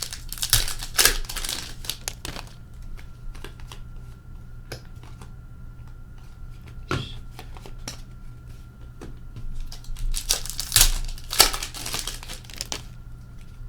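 Foil wrappers of trading card packs being torn open and crinkled, in two bursts, one near the start and one about ten seconds in, with light clicks of cards being handled between.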